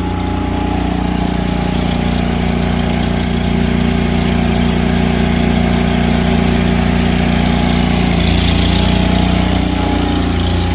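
Engine idling steadily, with a short hiss about eight seconds in.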